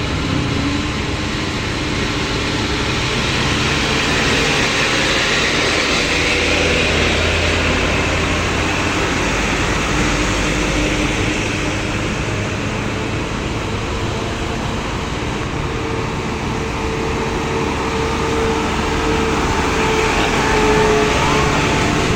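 Vehicle engines running steadily, a continuous mix of engine drone and road noise with a few engine tones that drift gently in pitch.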